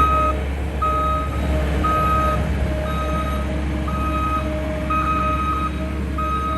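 John Deere 315 skid steer's backup alarm beeping about once a second, each beep a steady high tone, over the low hum of the machine's running engine.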